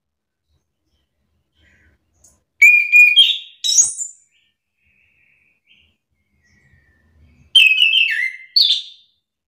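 Chestnut-capped thrush (anis kembang) singing two short bursts of loud whistled song, about two and a half seconds in and again near the end. Each burst is a quick run of fluty notes gliding up and down.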